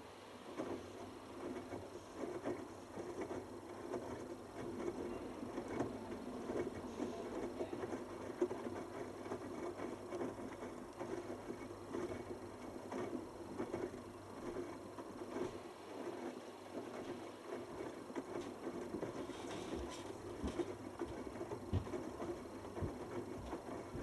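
Bosch Hydrosensor WFP3300 front-loading washing machine tumbling a wash load: the motor turns the drum while wet laundry and water slosh and knock inside it. It starts up at the beginning and runs steadily throughout.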